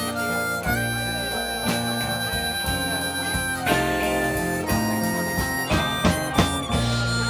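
Live band playing an instrumental break of a rock ballad: a lead line of long held notes over guitars, with steady drum hits.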